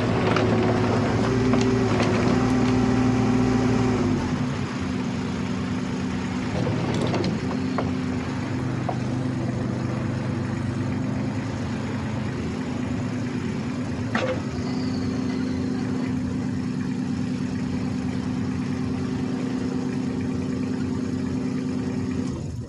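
Kubota U-30-5 compact excavator's diesel engine running, louder for about the first four seconds and then dropping back to a steady idle, with a few light clicks and knocks.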